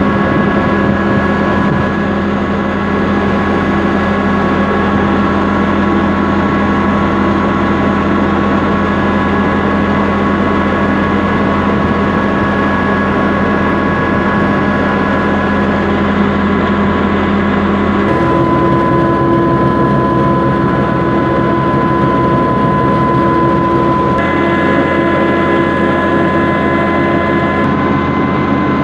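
Village wheat grinding mill running steadily, a loud continuous machine hum with steady tones. The pitch pattern changes abruptly about 18 and 24 seconds in.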